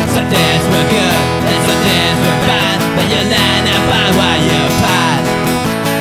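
Acoustic guitar strummed steadily, playing an acoustic punk song.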